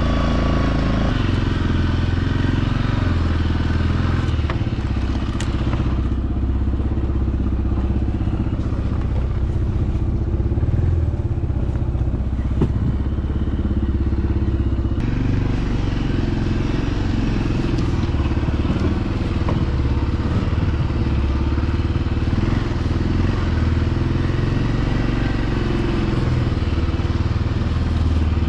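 A vehicle's engine running steadily under way, with occasional thumps and rattles.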